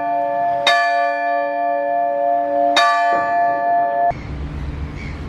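Tower bell rung by hand with a bell rope: two strikes about two seconds apart, each ringing on in several clear tones. The ringing cuts off abruptly about four seconds in, and a steady low outdoor noise takes over.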